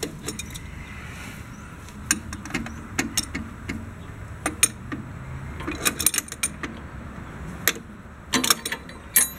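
Socket ratchet wrench clicking in short irregular bursts, with metal tools clinking, as a tight bolt on a tractor mower's belt tightener is worked loose.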